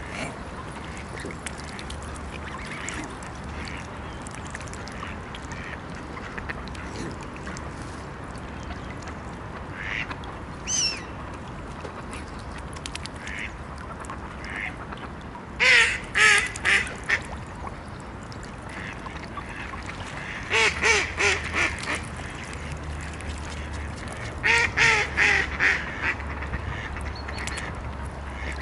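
Waterfowl calling: a few faint single calls, then three loud runs of five or six short calls in quick succession, a few seconds apart.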